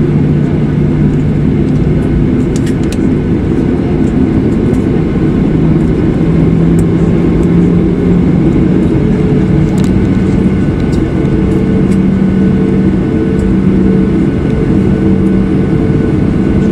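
A Boeing 737's turbofan engines running at taxi power, heard from inside the cabin: a loud, steady rumble with a hum that shifts up in pitch about five to six seconds in.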